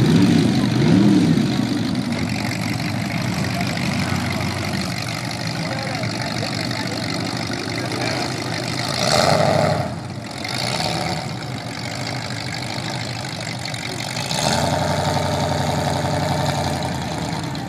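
Jeep engine running and revving, its pitch rising and falling near the start, with a louder burst about nine seconds in.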